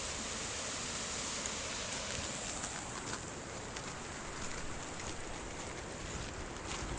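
Steady rushing of a mountain river's flowing water, with a few faint clicks.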